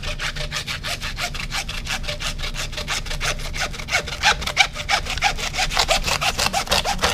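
Butcher's hand bone saw cutting through a pig's shoulder blade (scapula), in quick, steady back-and-forth strokes.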